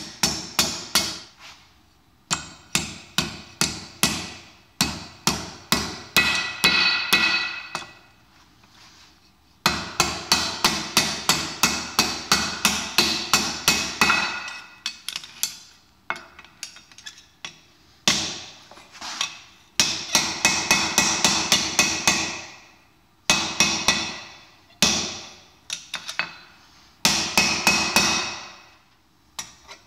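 Hand hammer striking hot mild-steel rod on a steel anvil in quick runs of blows, about four to five a second, with the anvil ringing between strikes. Short pauses break up the runs.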